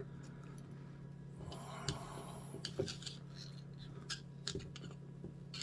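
Faint clicks and scraping of a screwdriver turning out a tiny flathead screw from the old drill's metal end plate, over a steady low hum.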